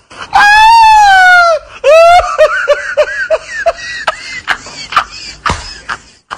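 A man laughing loudly and high-pitched: one long held shriek that sinks a little in pitch, then a quick run of "ha-ha-ha" bursts that fall in pitch, then a few sharp smacks.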